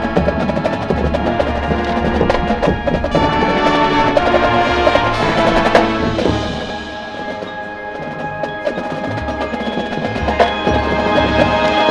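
Marching band playing, with held chords under busy percussion and bell-like mallet strikes; it eases off about seven seconds in and swells again near the end.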